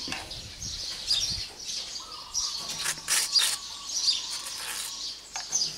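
Small birds chirping in the background, with the scratchy scrape of a table knife spreading butter on toast.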